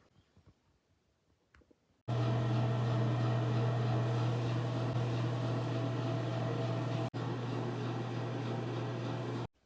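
Steady electric motor hum with a strong low drone, starting abruptly about two seconds in and stopping abruptly near the end, with a momentary break around seven seconds.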